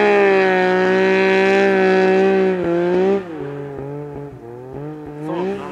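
Yamaha Nytro snowmobile's four-stroke triple engine held at high revs on a hillclimb, then backed off suddenly about three seconds in, the revs falling and rising in short blips after that.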